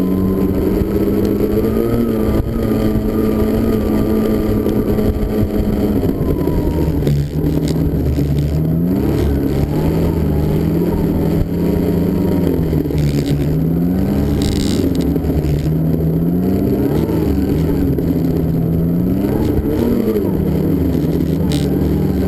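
Snowmobile engine running under throttle. Its pitch holds steady at first, drops about seven seconds in, then rises and falls again and again as the throttle is opened and eased.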